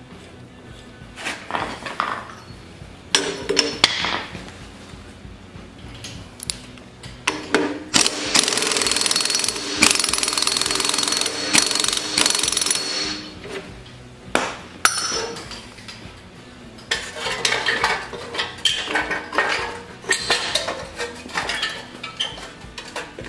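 Impact wrench hammering for about five seconds, driving the starter clutch down onto the flywheel of an old Briggs & Stratton engine. Before and after, metal clinks, knocks and clatter as the flywheel and engine shroud are handled.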